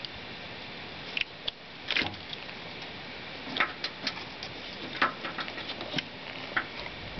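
Scattered plastic clicks and light knocks from a 1977 Chevrolet C20's fuse box as its removable back sections are handled and worked loose, over a steady hiss.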